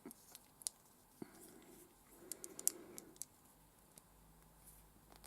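Faint, scattered small clicks of LEGO plastic pieces being handled, a minifigure's parts taken off and pressed back on, with a few clicks bunched together in the middle.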